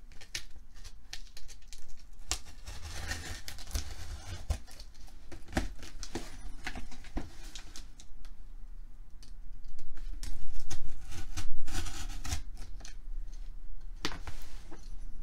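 A blade cutting through the packing tape and cardboard of a shipping box, with scraping, clicks and rustling as the box is worked open; the cutting gets louder about ten seconds in.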